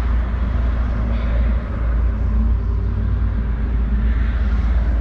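Steady low rumble of vehicle engines and traffic, heard from inside a matatu minibus.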